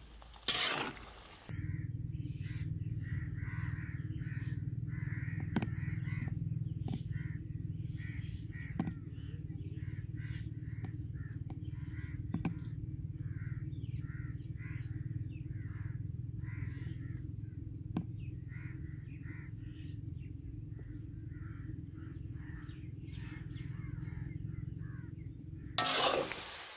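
Crows cawing again and again over a steady low hum, with a few faint clicks. At the very start there is a short stretch of ghee sizzling in the pan with stirring.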